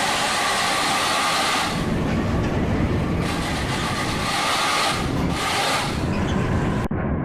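Tour bus driving close by: a loud, continuous rush of engine and road noise. About 7 seconds in, the sound abruptly turns duller.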